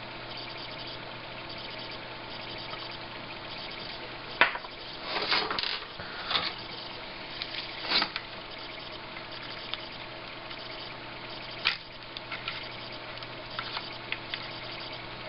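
Steady hiss with a low hum, broken by several sharp clicks and short scraping noises. The loudest click comes about four and a half seconds in, and another stands out near twelve seconds.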